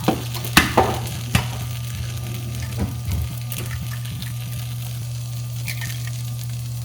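Food sizzling in a frying pan, with a few sharp clinks and knocks of a utensil against the pan in the first second and a half and again about three seconds in.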